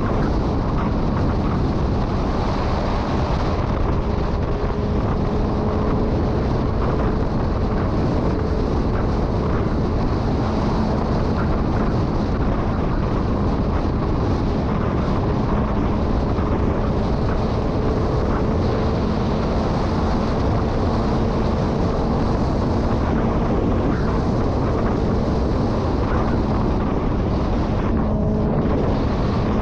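Motorcycle engine running at a steady cruising speed, its even note nearly buried under heavy wind rushing over the microphone.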